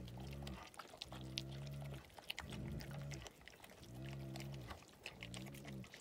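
Gaddi dog growling deeply in a run of about five long growls, each half a second to a second, with short breaths between them. Faint clicks are heard between the growls.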